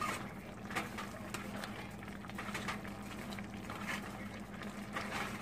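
Spoon stirring chicken stew in a stainless steel pan, with irregular scrapes and clicks against the pan over the bubbling of the simmering sauce. A steady low hum runs underneath.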